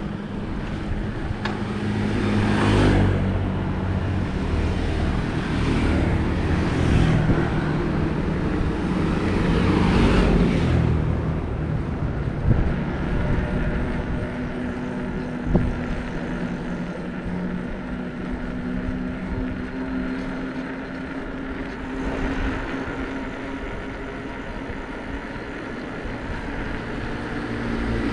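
Bicycle tyres rolling on a road with steady wind and road noise, while several vehicles pass by, swelling and fading three times in the first half.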